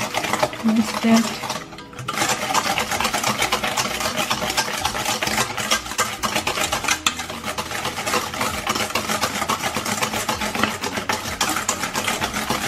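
Wire balloon whisk beating a thick butter, sugar and egg batter in a stainless steel bowl, its wires clicking and scraping against the metal in rapid, even strokes that settle into a steady rhythm about two seconds in.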